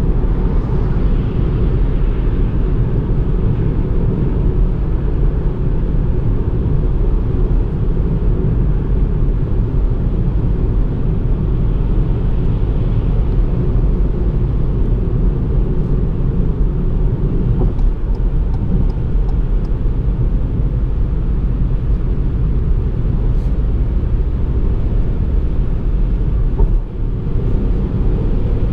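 2019 Ford Fiesta 1.0 EcoBoost, a three-cylinder turbocharged petrol engine, running at a steady high cruising speed, under a dense low rumble of road and wind noise. The level holds even apart from a brief dip near the end.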